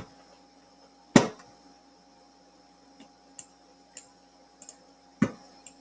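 Sharp clicks, two louder ones about a second in and near the end, with fainter ticks between: clicking at a computer. A faint steady electrical hum runs underneath.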